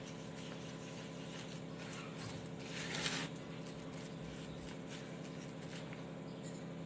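Spatula stirring dry chocolate cake premix with a little water in a plastic bowl: soft scraping and mixing, with a brief louder rustle about three seconds in. A steady background hum runs underneath.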